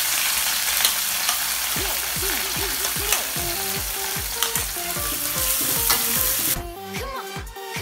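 Ground chili, shallot, garlic, ginger, turmeric and candlenut spice paste sizzling loudly as it goes into hot oil in a wok and is stirred, with spoon clicks against the plate and pan. The sizzling cuts off near the end, leaving background music with a steady beat that runs underneath throughout.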